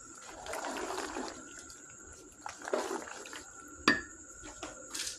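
Spoon stirring penne pasta through thick cheese sauce in a pan: wet squelching and scraping, with a few sharp knocks, the sharpest about four seconds in.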